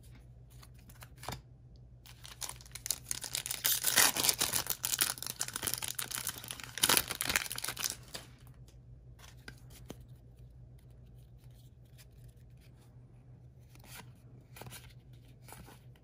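Foil wrapper of a Magic: The Gathering collector booster pack being torn open and crinkled, from about two seconds in until about eight seconds, loudest around four and seven seconds. Quieter handling of the cards follows, with occasional light clicks.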